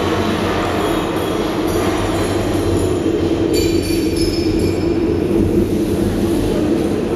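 Steady, dense low rumbling drone from the installation's soundtrack, with faint high ringing tones coming in about three and a half seconds in.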